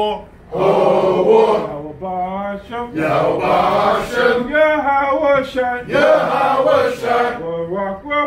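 Congregation of men chanting Hebrew praise to God. A lone male voice sings each line and the group answers, back and forth every second or two.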